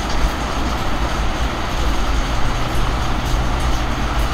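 Steady background rumble with hiss, with no distinct events.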